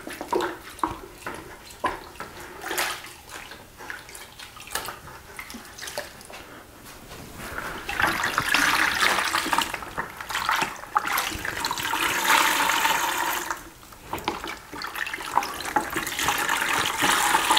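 A foam Husaberg air filter, soaked in R3 filter cleaner, being squeezed and worked by gloved hands in a bucket, the liquid squelching and sloshing with small splashes as the oil is washed out of the foam. About eight seconds in the sloshing turns louder and more continuous. It eases briefly near fourteen seconds, then picks up again.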